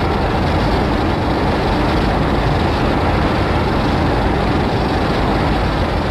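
Loud, steady rumbling noise without a clear pitch, part of a homemade monster sound effect for the invented kaiju Cordinzilla.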